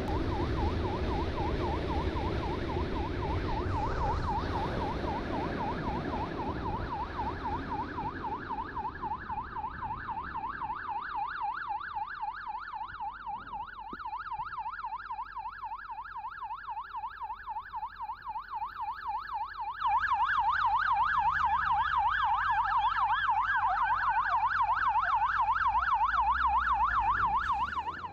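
Electronic emergency siren in a rapid yelp, its pitch sweeping up and down many times a second, with motorcycle engine and wind noise under it at first. The siren gets suddenly louder about two-thirds of the way in.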